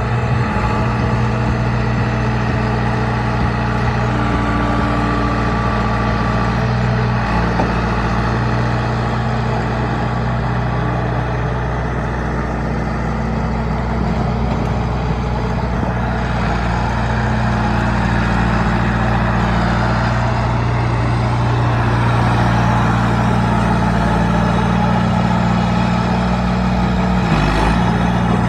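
Diesel engine of a John Deere 455E crawler loader running steadily under work, its pitch shifting slightly a few times as the load changes.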